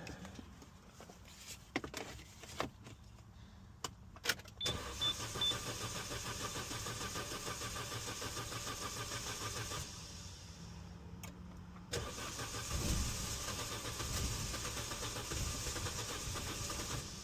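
Renault Mégane RS being cranked on its starter motor without firing: several clicks, a few short beeps, then about five seconds of steady cranking, a pause, and a second cranking attempt of about five seconds that still does not catch.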